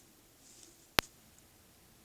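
A single sharp click about a second in, over faint steady background hiss.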